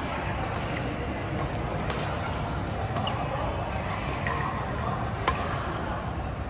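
Badminton rally: a few sharp racket strikes on the shuttlecock, the loudest about five seconds in, over steady hall noise and voices.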